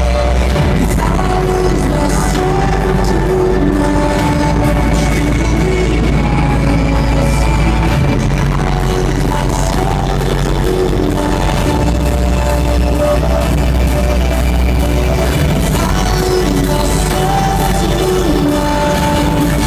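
Loud live music over a concert sound system, with a heavy sustained bass under a shifting melody line.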